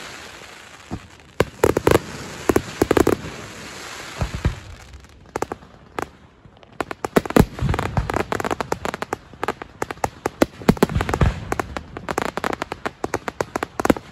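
Fireworks barrage: a few clusters of loud bangs in the first three seconds, a short lull, then a rapid, almost continuous run of bangs and crackling from about halfway on.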